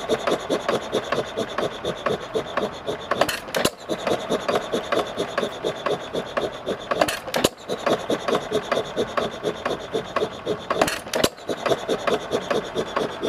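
Reeves Pulley Co. hit-and-miss stationary gas engine running while it belt-drives an ice cream freezer. A fast, even mechanical clatter runs throughout, and about every three and a half seconds the engine fires twice in quick succession with sharp bangs, then coasts.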